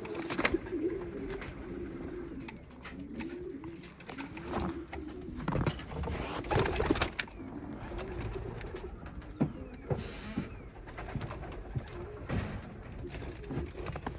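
A loft full of pigeons cooing, many low, wavering coos overlapping without a break, with scattered short knocks and rustles among them.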